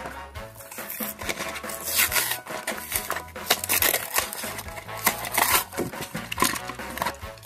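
Plastic blister pack and cardboard backing crinkling and tearing in the hands as a small die-cast toy engine is pulled out, a rapid run of crackles, over background music.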